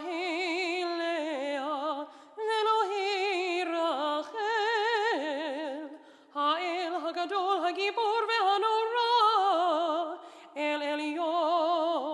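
A solo female voice chanting a Hebrew prayer in cantorial style, unaccompanied, with wide vibrato on long held notes. She sings several phrases with short breaks between them.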